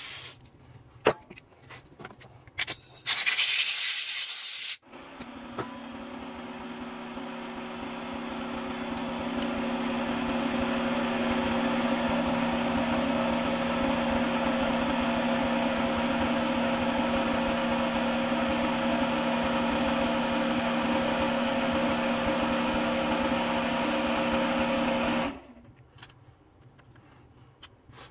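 A few light clicks, then a short, loud hiss lasting about two seconds. A motor-driven machine then starts, builds up over several seconds to a steady hum, runs evenly for about twenty seconds, and cuts off suddenly.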